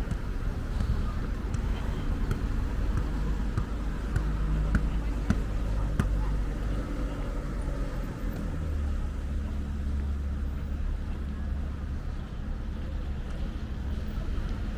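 Seafront street ambience: a steady low rumble of wind on the microphone mixed with passing road traffic, growing stronger about halfway through, with a few sharp clicks around four to six seconds in.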